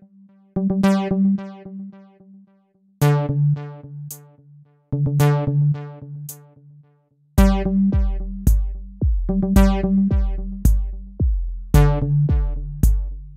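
Background music with a steady beat. A heavy bass beat joins about halfway through, about two beats a second.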